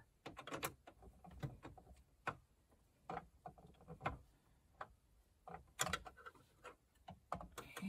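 Faint, irregular clicks and ticks of a small screw and the plastic instrument-cluster bezel of a Chevy Caprice being handled as the screw is fitted by hand, with a few sharper clicks scattered through.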